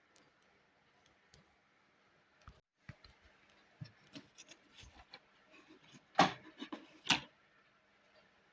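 Scattered clicks and knocks of plastic parts being handled during disassembly of a washer-dryer's drying unit, busier in the second half, with two louder knocks about six and seven seconds in.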